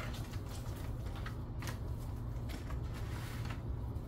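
Light crinkling, rustling and scraping from a disposable aluminium foil pan as food is mixed in it, in scattered small clicks, over a steady low hum.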